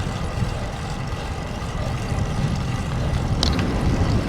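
Strong headwind buffeting the microphone of a bike-mounted action camera: a dense, uneven low rumble.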